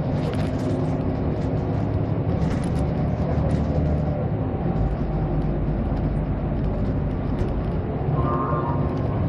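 Interior of an Irisbus Citybus city bus under way: the engine and drivetrain run steadily under road noise, with scattered light rattles and clicks.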